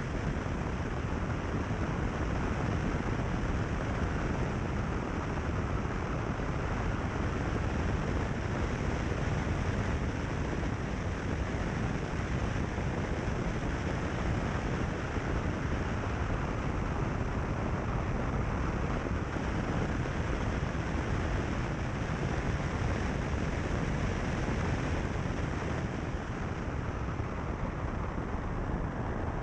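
Steady rush of wind buffeting a bonnet-mounted camera's microphone, mixed with tyre noise from a car driving along a gravel road. No engine note stands out.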